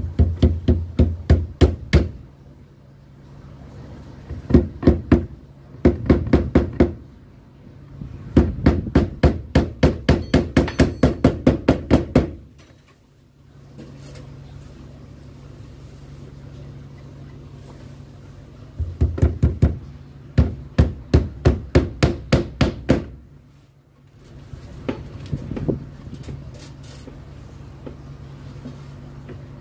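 Hammer tapping pins through a strip of carpet into a wooden door frame overhead. It strikes in quick runs of light, even blows, about three or four a second, with pauses between runs; the longest run, of about a dozen blows, comes near the middle.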